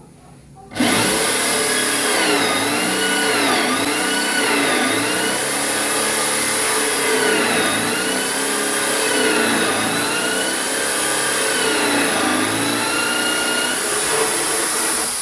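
Total TG105136 550 W corded impact drill boring a 30 mm Forstner bit into a softwood (jati Belanda) board. The motor starts suddenly about a second in and runs on, its pitch sagging and recovering again and again as the bit bites under load.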